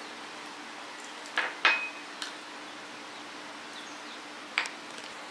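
Four sharp clinks of eating utensils against dishes, the loudest one a little under two seconds in ringing briefly, over a faint steady hum.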